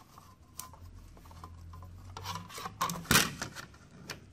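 Rubbing, scraping and small clicks as a TV's T-con circuit board is handled and its flat ribbon-cable connector is worked loose by hand, with the sharpest click about three seconds in.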